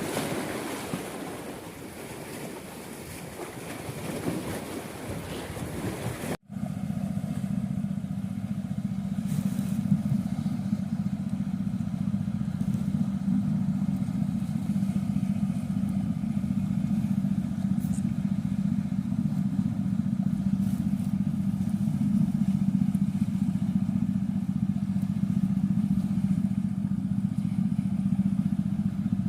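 Wind and surf noise for the first few seconds. Then, after an abrupt cut, a small engine running steadily at constant speed with an even, unchanging drone.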